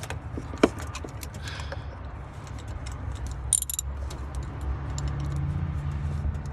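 Metal hand tools clinking against each other as a socket and ratchet are fitted onto a spark plug. A sharp click comes about half a second in and a brief metallic jingle about three and a half seconds in, with scattered light ticks over a steady low rumble.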